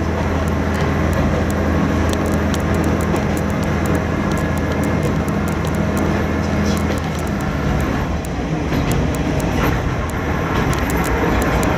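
Diesel railcar KiHa 532 running along the track, heard from its cab: a steady engine drone under power that drops away about seven seconds in, leaving the rumble of the wheels on the rails with scattered clicks.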